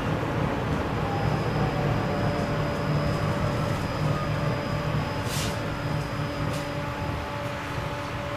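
Inside a TVZ 71-931 Vityaz-M low-floor tram running between stops: steady rumble of wheels on the rails, with the whine of the electric drive rising in pitch over the first few seconds. There is a short hiss about five seconds in.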